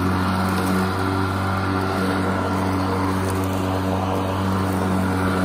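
EGO Power+ 21-inch cordless electric self-propelled lawn mower running steadily as it is pushed over grass: an even motor-and-blade hum that holds one pitch throughout.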